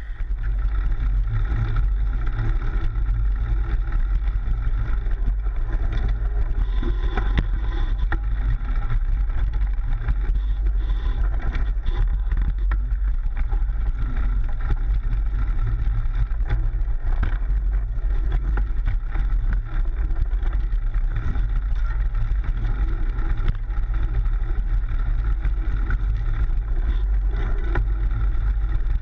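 Steady rumble of wind and ride vibration on a frame-mounted GoPro as a Trek Slash 7 mountain bike is ridden over a dirt trail, with scattered clicks and knocks from the chain and frame over bumps.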